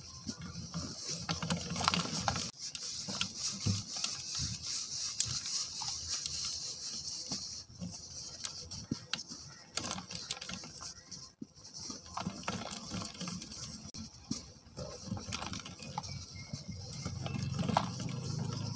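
Dry cement lumps crumbling between the fingers, the powder pouring down onto a plastic grid tray as a steady high hiss full of small crackles and clicks, breaking off briefly a few times.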